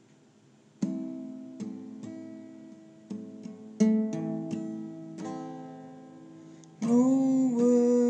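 Acoustic guitar playing chords struck one at a time and left to ring, with a voice coming in singing near the end.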